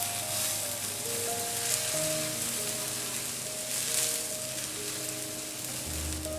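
Brioche bread and mozzarella sizzling in ghee on a cast iron griddle, a steady frying hiss, with soft background music.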